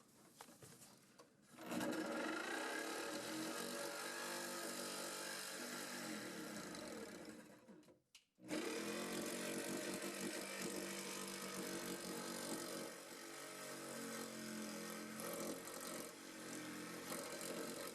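Power saw cutting through the fiberglass cargo boxes behind the seats of a C3 Corvette body. It runs in two long cuts, stopping briefly about eight seconds in.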